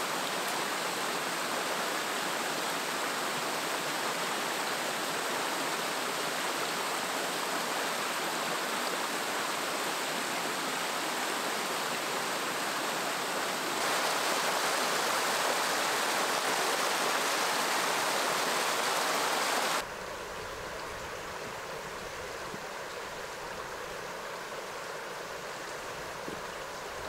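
Steady rush of flowing water from a stream or river rapids. It jumps louder about halfway through, then cuts to a quieter, duller rush about three-quarters of the way in.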